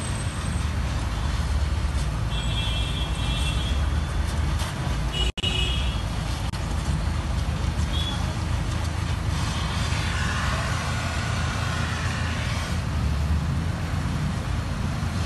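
Steady street traffic rumble with a couple of short vehicle horn toots, over the steady hiss of a gas welding torch.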